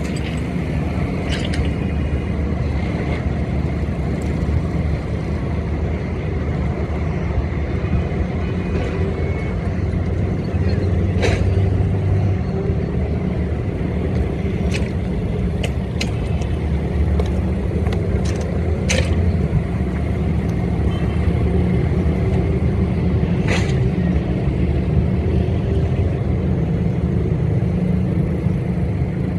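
Diesel train running with a steady low rumble, with several short sharp metallic clicks scattered through it.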